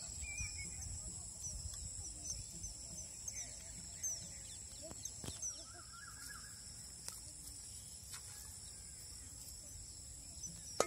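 A bird chirping outdoors: short, high chirps that repeat through the first half, over a steady high-pitched hum and a few sharp clicks.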